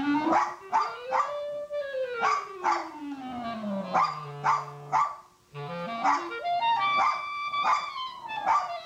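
Small dog barking repeatedly, about twice a second, at a clarinet, with a short break about five and a half seconds in. The clarinet plays slow runs up and down the scale under the barking.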